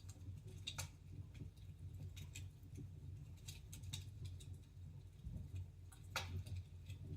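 Wood fire in a fireplace crackling: scattered irregular pops and snaps over a low steady rumble, the loudest snap about six seconds in.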